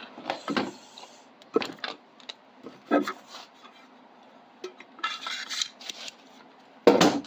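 Metal hand tools clinking and knocking as they are set down and gathered, a handful of separate knocks with the loudest near the end. A short rustle about five seconds in.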